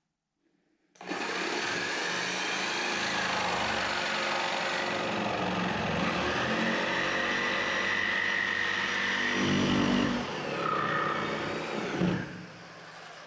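Electric jigsaw cutting through a wooden board. It starts about a second in, runs steadily through the cut, and stops near the end.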